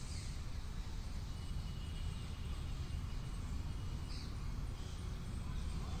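Steady low rumble of outdoor background noise, with a brief faint high chirp about four seconds in.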